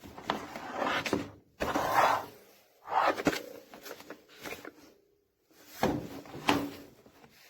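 Portable folding stool being handled: rubbing and scraping with sharp clicks and knocks, in four bursts of one to two seconds each.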